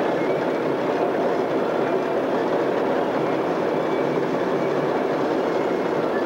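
Caterpillar D8 crawler dozer working, its diesel engine running steadily under load with the clatter of its tracks as it tows a scraper.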